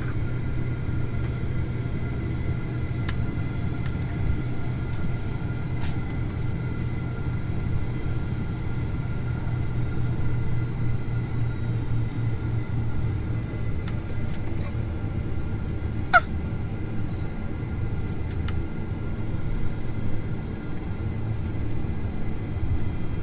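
Steady low rumble of the cabin noise inside a Boeing 767-400ER, with faint steady whining tones above it. A single sharp click sounds about two-thirds of the way through.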